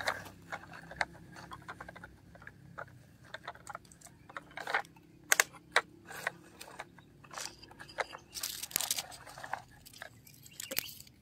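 Plastic toy wheel loader pushed over gravelly dirt: its bucket and tyres scrape and crunch on soil and small stones in irregular clicks and crunches, with the sharpest ones about five seconds in.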